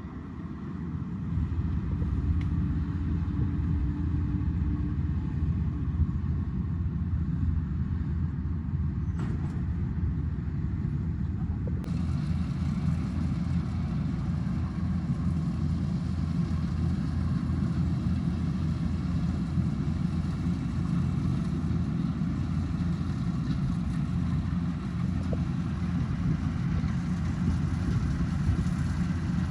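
Rice combine harvester engine running steadily, its level rising over the first second or two, with more hiss joining about twelve seconds in.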